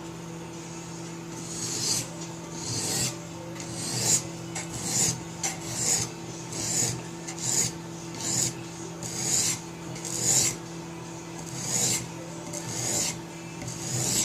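A 180-grit sharpening stone on a guided-angle knife sharpening kit rasps across a steel knife edge in repeated strokes, roughly one a second, beginning a second or so in. A steady low hum runs underneath.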